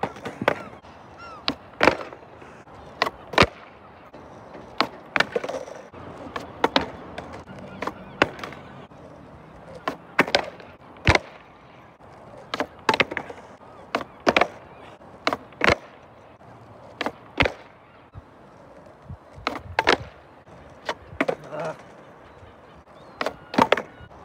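Skateboard being popped and flipped on asphalt again and again in kickflip attempts: sharp wooden pops and clacks as the tail strikes the ground and the deck lands or falls over, often in quick pairs or threes, roughly one to two a second.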